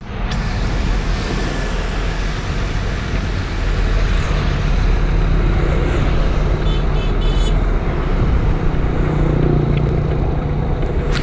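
Dump truck's diesel engine running as it pulls slowly out onto the road, a steady low rumble mixed with passing traffic and motorbikes. A brief high-pitched squeal comes about two-thirds of the way through.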